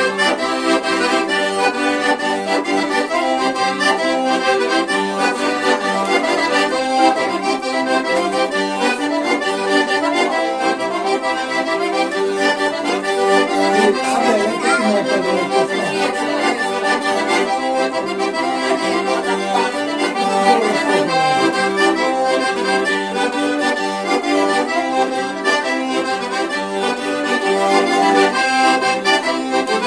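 Two small button accordions playing a tarantella together, a lively southern Italian folk dance tune, with a steady flow of notes throughout.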